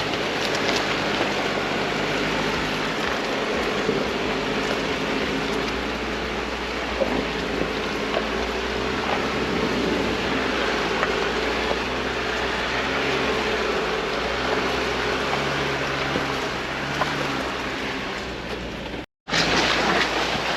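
Jeep driving, with steady engine and road noise and a low hum. It cuts out for a moment near the end.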